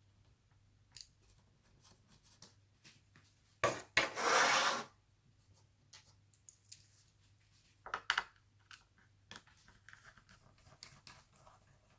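Laptop parts being handled during disassembly: scattered small clicks and taps, with a short loud scrape lasting about a second a little under four seconds in and a couple of sharp clicks about eight seconds in.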